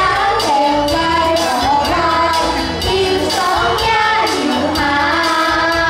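A group of children singing a Hakka nursery rhyme in unison to a musical accompaniment with a steady beat.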